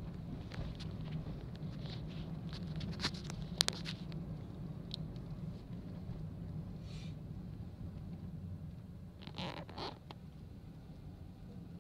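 Inside a moving car's cabin: a steady low engine and road rumble, with scattered light clicks in the first few seconds and a brief rustle about nine and a half seconds in, as the handheld camera is moved.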